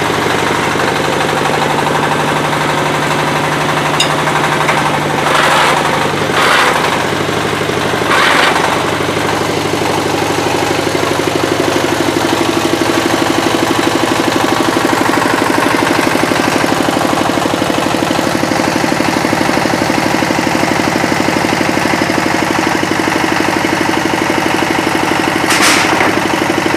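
Hydraulic press power unit (motor driving the hydraulic pump) running steadily, its tone shifting about ten seconds in as the load changes. Several short hisses cut through, three close together about five to eight seconds in and one near the end.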